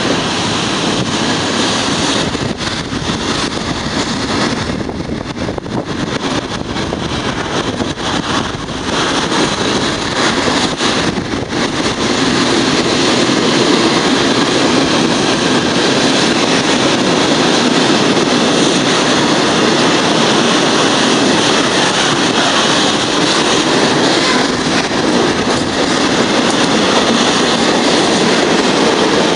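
Freight train of tank wagons passing close by at speed: a steady rush of wheels on the rails that grows louder about twelve seconds in.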